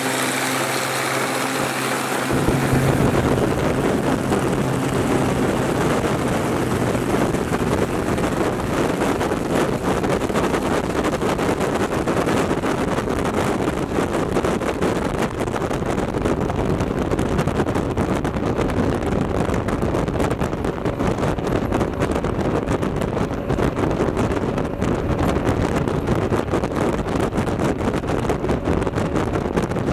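A floatplane's engine and propeller drone at a steady pitch, cut off about two seconds in. After that comes a loud, steady rush of wind buffeting the microphone on a fast-moving boat.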